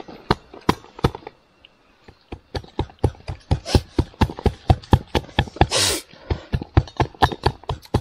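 A trekking pole pounding something to crush it fine: a run of sharp, irregular knocks, a few a second, with a brief scraping rustle just before six seconds in.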